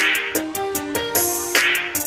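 Background music with a steady beat: electronic track with short plucked notes.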